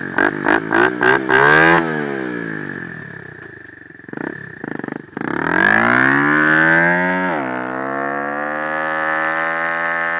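Small single-cylinder pit bike engine blipped quickly at the throttle, about three revs a second, then the revs fall away. About five seconds in it accelerates hard with a rising pitch, drops briefly as it shifts up, and holds a steady high-revving note as the bike rides off.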